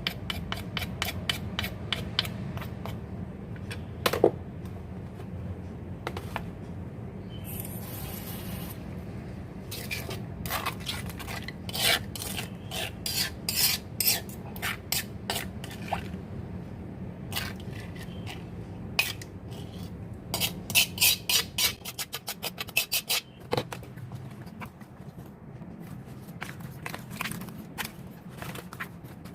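Kitchen utensils scraping, rubbing and clinking against a bowl or pan in irregular strokes while food is prepared, over a steady low hum.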